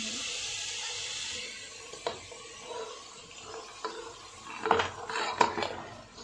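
Sauce sizzling in a wok, fading after the first second or so, then boiled noodles tipped in from a bowl and turned with a wooden spatula, with a few light clicks and a louder run of knocks against the pan about five seconds in.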